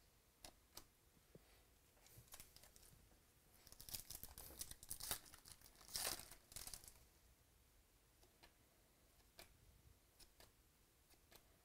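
The foil wrapper of a 2018 Topps Stadium Club baseball card pack being torn open and crinkled, loudest about six seconds in. A few light clicks come from trading cards being handled before and after.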